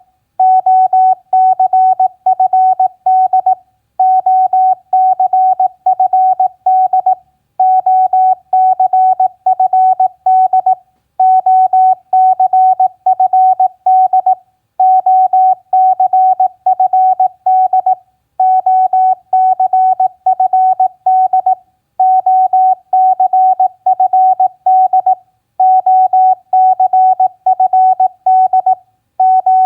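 Morse code (CW) practice tone at 18 words per minute: a single steady pitch keyed rapidly into dots and dashes, sent in groups of about three seconds with short pauses between them.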